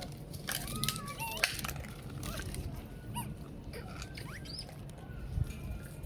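Monkeys giving short, high squeaky calls, several in the first second and a half and a few more later, with scattered clicks and rustling.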